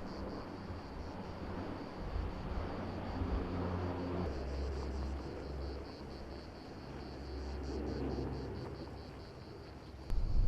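Low, steady engine drone with rumble, over a high pulsing buzz; a louder rumble comes in near the end.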